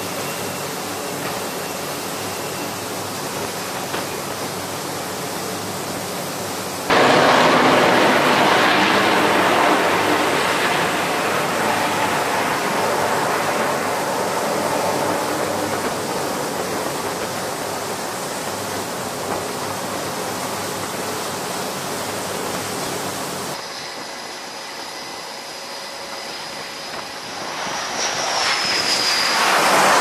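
F/A-18 fighter jet engines running on an aircraft carrier flight deck, a steady wide noise. About seven seconds in the jet noise jumps suddenly much louder, then eases off over several seconds. Near the end it drops quieter and then swells again.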